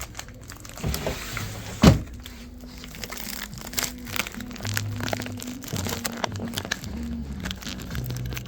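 Music with held low bass notes that change pitch every second or so, over crinkling and rustling handling noise, with one sharp knock about two seconds in.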